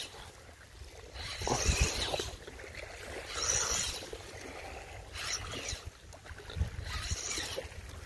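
Small waves washing in over a muddy shoreline, the wash rising and falling in four or five surges about every two seconds.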